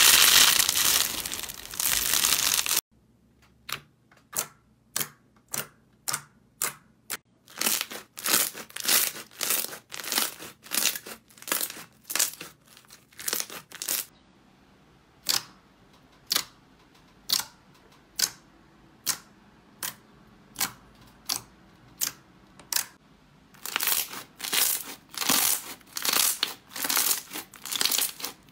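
Hand-squeezed slime. For the first three seconds a crunchy, mesh-textured slime gives a dense crinkling crackle. Then a thick slime being pressed and folded makes a run of sharp pops and clicks, about one or two a second, which come louder and closer together near the end.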